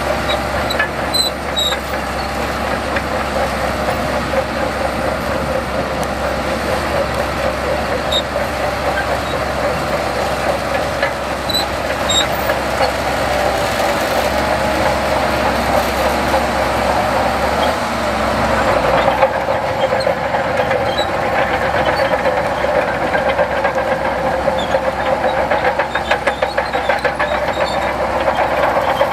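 Heavy earthmoving machinery running steadily under load, with short metallic squeaks. About two-thirds of the way through the sound shifts and becomes rattlier and more clattery.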